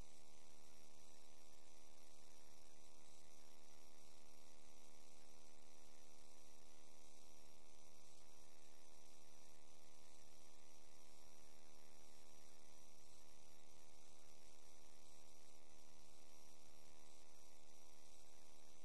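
Steady electrical mains hum with a faint hiss in the audio of a sewer inspection camera system.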